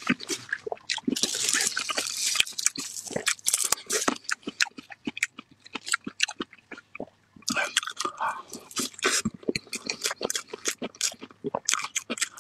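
Close-miked chewing of a mouthful of food: a dense run of wet smacks and clicks from lips and mouth, easing for about a second two-thirds of the way through before picking up again.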